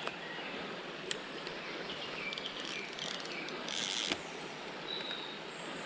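A steady faint rush of shallow running river water, with a few short high bird chirps near the end. There is a short hiss ending in a click about four seconds in, and a couple of faint clicks.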